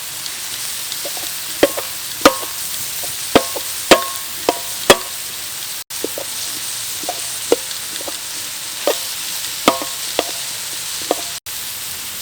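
Vegetable stir-fry sizzling in a hot pan while a metal spatula stirs it, with irregular ringing clinks of the spatula striking the pan.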